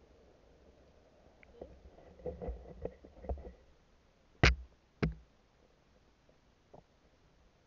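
Muffled knocks and bumps heard underwater through a camera housing: a cluster of light knocks with low rumbling, then two sharp, loud knocks about half a second apart.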